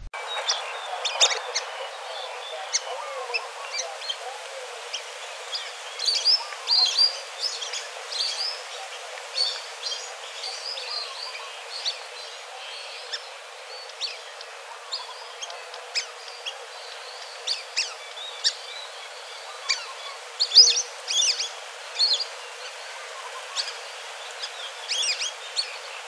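Birds chirping and calling: many short, high calls scattered throughout, some in quick runs, over a steady hiss. The loudest calls come about twenty seconds in.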